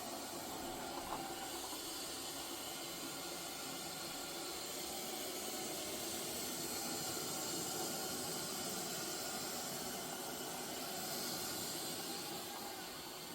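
Robot vacuum cleaner running, a steady hiss from its suction fan with faint motor tones underneath, swelling slightly louder twice.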